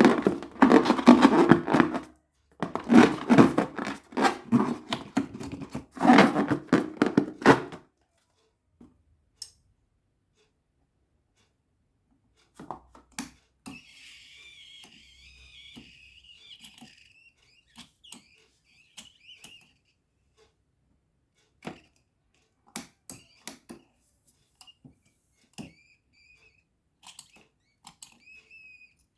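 Slime-filled balloons being squeezed and kneaded by hand, giving three long runs of dense, rapid crackling clicks in the first eight seconds, then scattered single clicks and a faint wavering squeak of rubber.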